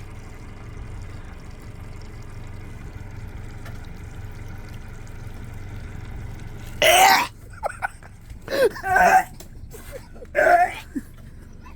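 A man gagging and coughing in about four loud, harsh bursts starting roughly seven seconds in, his reaction to the taste of raw salmon roe he has just put in his mouth.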